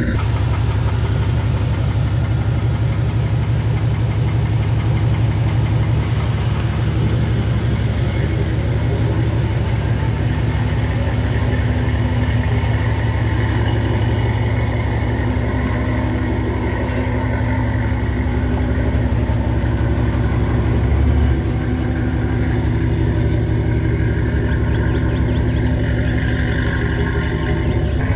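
GMC Sierra's 5.3-litre V8 idling through a loud aftermarket exhaust, with a steady, low pulsing note while the truck rolls slowly in reverse. There is one brief louder bump about 21 seconds in.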